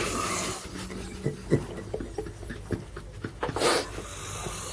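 A sleeping snorer breathing heavily, with one loud breath a little past halfway, among a few small clicks and rustles.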